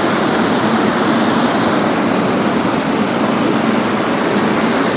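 Waterfall: falling water rushing in a loud, steady, unbroken wash of noise.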